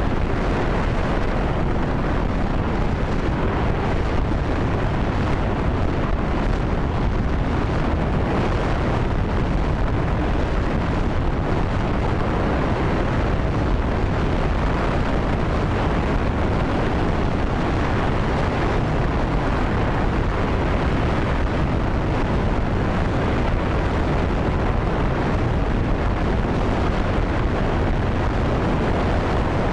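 J-2X liquid-hydrogen/liquid-oxygen rocket engine firing steadily on a test stand during a full-duration test: a loud, even rushing noise, heaviest in the low end, that holds without change.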